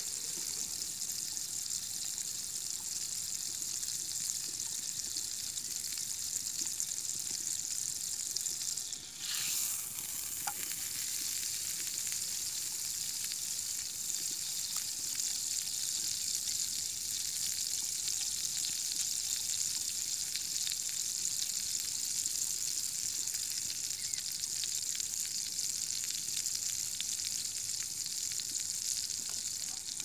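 Eggs frying in hot fat in a pan over a wood fire: a steady high sizzle that dips briefly about nine seconds in.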